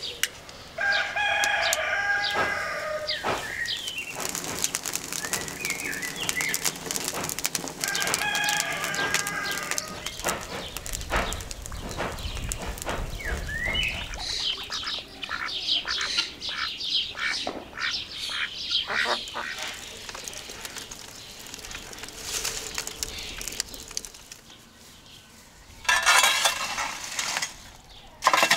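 A rooster crows twice, once near the start and again about eight seconds in, over scattered crackling clicks from the wood fire and small birds chirping. Near the end comes a loud burst of scraping and knocking as burning wood is pushed about inside the oven.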